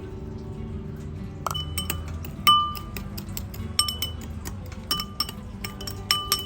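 Repeated sharp clinks of something hard striking metal or glass kitchenware, about ten in all, each ringing briefly. They begin about a second and a half in, after some soft guitar music fades out.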